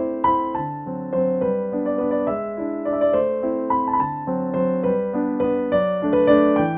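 Background music played on piano, with notes and chords struck one after another in a steady, flowing pattern.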